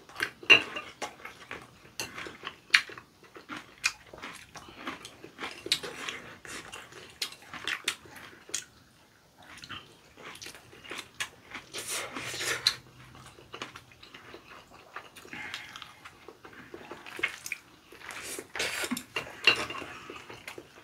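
Chopsticks clicking and scraping against a pan and plates during a meal, with chewing and a longer slurp of noodles about twelve seconds in.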